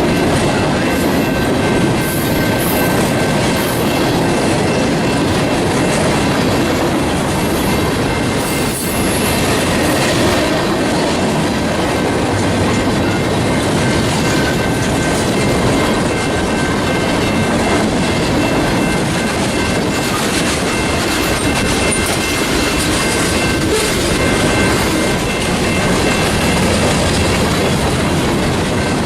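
Train cars rolling past steadily, wheels clattering on the rails, with a faint, steady, high squeal from the wheels.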